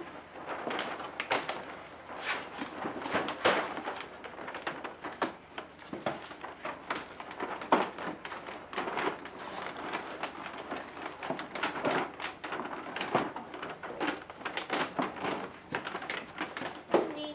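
Gift wrap and a cardboard box being pulled open and handled: irregular rustling and crinkling of paper with scattered knocks and thuds of cardboard.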